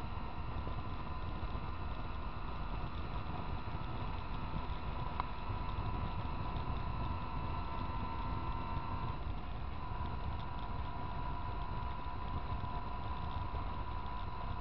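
Motorcycle riding at a steady cruise: wind buffeting the microphone, with the engine running steadily underneath as a constant tone that shifts slightly about two-thirds of the way through.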